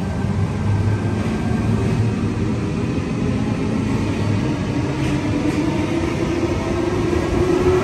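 Sydney Trains electric double-deck passenger train moving along an underground station platform: a steady rumble of wheels and motors, with a motor whine rising in pitch near the end as it gathers speed.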